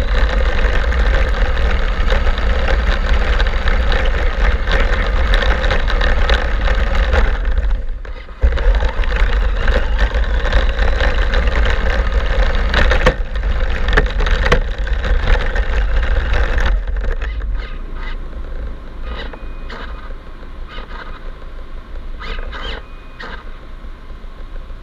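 Battery-powered RC truck driving across beach sand: a loud, steady motor and gear whine mixed with tyre and sand noise, as heard from a camera mounted on the truck. It lets off briefly about eight seconds in, and from about two-thirds of the way through it slows and goes quieter, with a few short blips of the motor.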